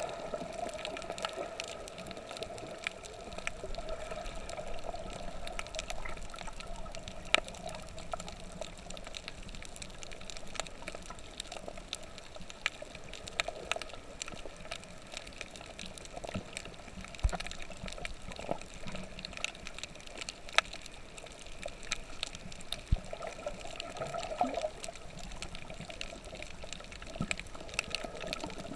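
Water sounds: a steady rushing with many scattered sharp clicks.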